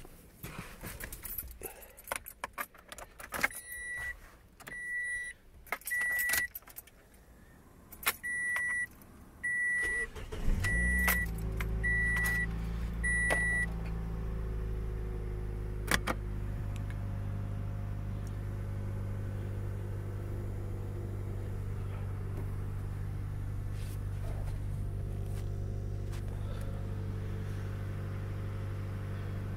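Keys jangling and clicking at the ignition, then a dashboard chime beeping about once a second. About ten seconds in, the 2010 Toyota Yaris's 1.5-litre four-cylinder starts from cold, runs a little louder for a few seconds, then settles into a steady idle.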